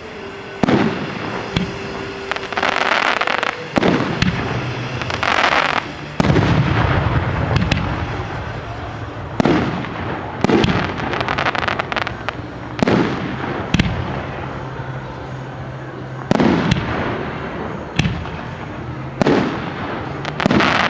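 Fireworks display: a dozen or so sharp shell bursts, each trailing off in an echo. About three seconds in and again around five seconds in come longer stretches of crackling hiss.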